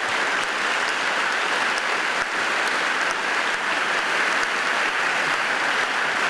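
Audience applauding: a steady, dense round of hand-clapping from a hall full of people, acclaiming a first-place winner.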